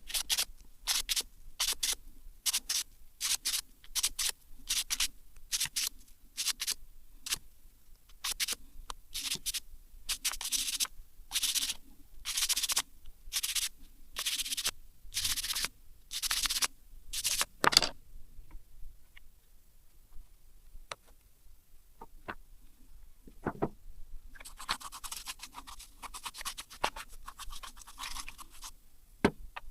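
Hand scrubbing or brushing strokes on a small engine part, one after another at roughly one and a half a second, stopping about 18 seconds in. Near the end comes a steady hiss lasting about four seconds.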